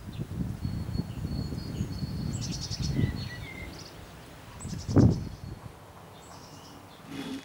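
Small birds chirping and trilling, several quick high chirp runs. A low rumble fills the first few seconds, and a single loud thump comes about five seconds in.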